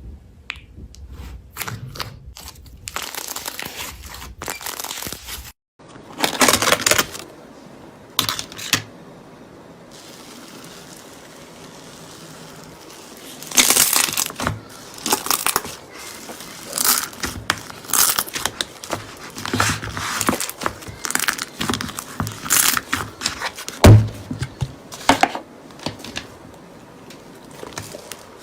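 Slime being squeezed, stretched and poked by hand close to the microphone: irregular crackling, crinkling squishes. A brief silence breaks it about five and a half seconds in, and there is one sharp louder knock near the end.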